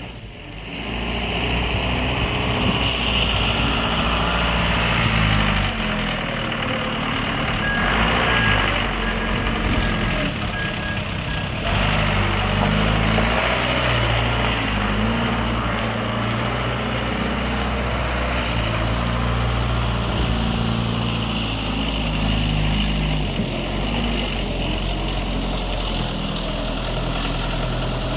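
John Deere 310HL backhoe's diesel engine running, its note rising and falling several times. A hissing rush comes in between about 8 and 11 seconds in.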